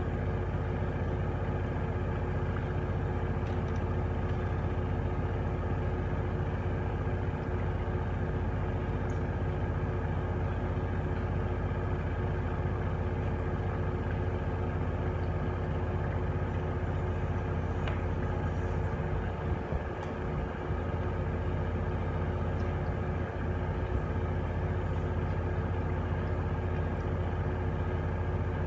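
Gorenje WA73161 washing machine with a brushless inverter motor running during a test wash: a steady hum with an even motor whine that holds a constant pitch.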